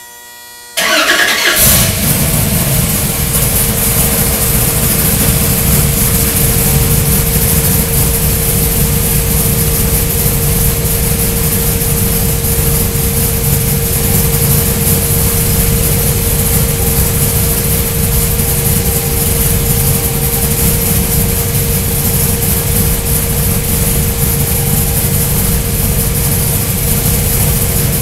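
Whipple-supercharged LSX 448 cubic-inch V8 on an engine dyno fires up about a second in and then idles steadily, with a steady whine over the engine.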